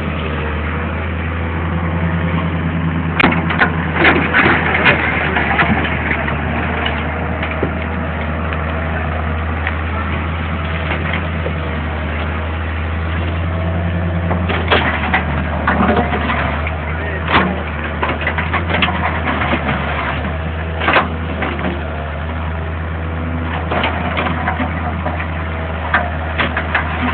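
Wheeled hydraulic excavator's diesel engine running steadily while the bucket digs into sand and gravel, with scraping clatters and knocks of stones several times.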